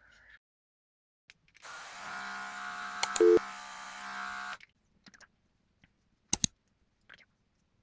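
Portable air-compressor mist sprayer running for about three seconds: a small motor's steady hum under the hiss of the fine mist jet, with a click and a brief louder tone partway through. About two seconds after it stops come two sharp clicks.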